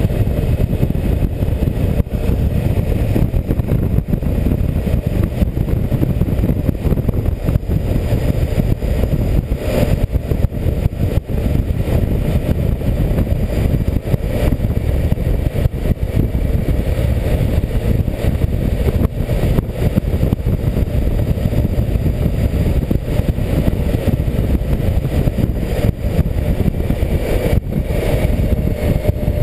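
Heavy wind buffeting on the microphone of a camera mounted on a BMW K1600GTL touring motorcycle riding at road speed, with the bike's inline-six engine running underneath. Near the end a faint rising tone comes in as the engine speeds up.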